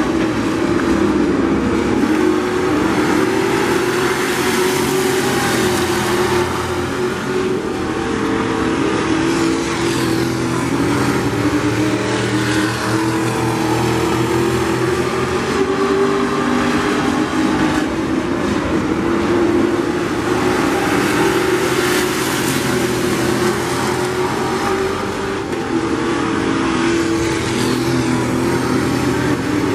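A pack of vintage-bodied dirt-track race cars running hard around the oval. The engine pitches rise and fall as the cars lap, with no break.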